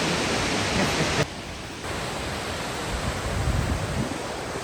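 Steady rushing roar of a large waterfall, an even hiss of falling water that drops abruptly in level about a second in and carries on quieter.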